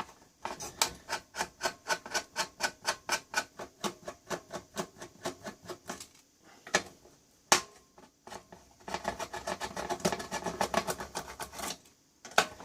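Screwdriver undoing the meter mounting screws on a test-set panel: a steady run of clicks, about four a second, then a pause with two sharper knocks, then a faster, denser run of clicks.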